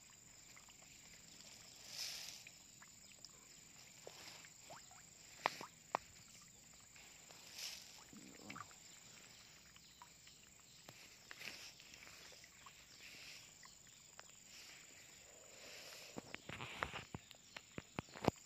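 Red tilapia feeding at the water surface on floating pellets: scattered faint splashes and pops, with a quick run of sharp clicks near the end.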